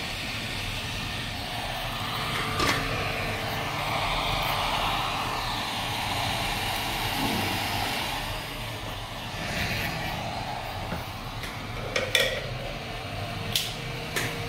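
Hot air rework station blowing a steady hiss of hot air over a laptop motherboard's AMD CPU, reflowing the solder balls under the chip, which the repairer suspects are cracked and cold. A steady low hum runs underneath, and a few light clicks come about three seconds in and near the end.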